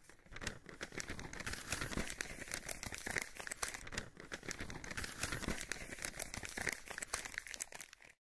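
Paper or parchment rustling and crinkling, a dense run of small crackles that stops abruptly near the end; a sound effect for a scroll being rolled and unrolled.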